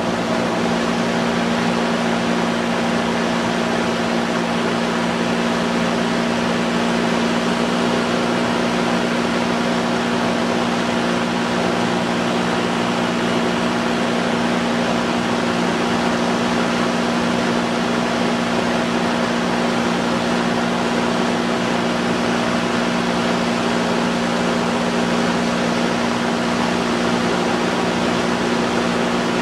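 Light aircraft's engine and propeller droning steadily in level cruise, heard on board, over a constant hiss of rushing air.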